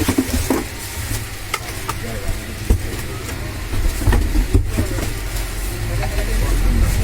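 Barsha high-speed table fan running, its airflow buffeting the microphone as a low rumble that grows stronger in the second half, with scattered light clicks and knocks.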